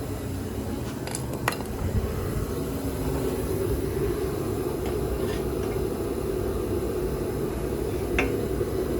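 A few light metallic clinks of hand tools and parts being handled, scattered through the stretch, over a steady low background noise.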